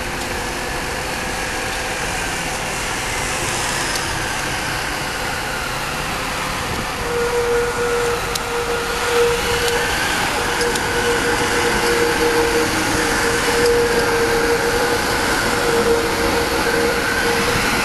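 Alstom Cityway low-floor tram approaching and passing close by. A steady whine comes in about seven seconds in, and the sound grows a little louder as the tram nears.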